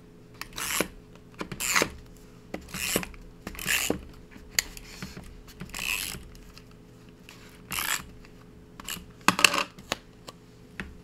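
Paper being handled: a series of short rasping rustles, about seven of them a second or two apart, the loudest near the end.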